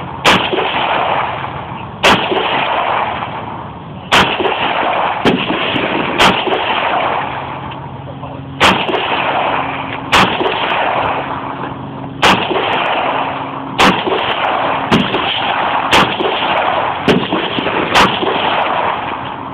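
AR-15 rifle fired in a steady string of single semi-automatic shots, about thirteen cracks spaced one to two seconds apart, each followed by a long echo.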